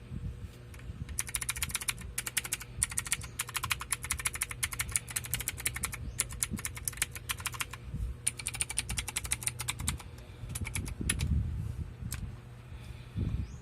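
K28 mechanical gaming keyboard with blue (clicky) switches being typed on fast: a dense run of sharp key clicks for about six seconds, a short pause, another quick burst, then a few scattered keystrokes near the end.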